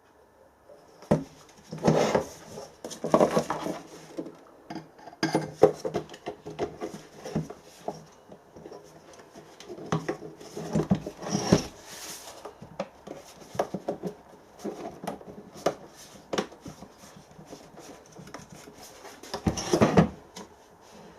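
Clicks, knocks and rattles of a diesel air heater's casing and parts being handled on a bench. They come irregularly, with louder bursts of clatter around two, eleven and twenty seconds in.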